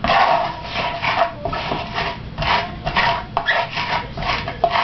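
Knife blade scraped and smeared again and again across diced garlic and salt on a cutting board, mashing the garlic into a paste; rasping strokes, a little over two a second.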